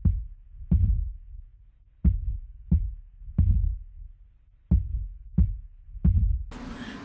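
Heartbeat sound effect: slow, deep thumps, some in quick pairs, behind a horror-style intro card. A hiss and music come in just before the end.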